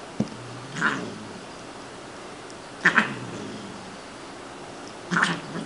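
Siamese cat giving three short, harsh cries while play-fighting, about a second in, about three seconds in and near the end; it is play, not anger.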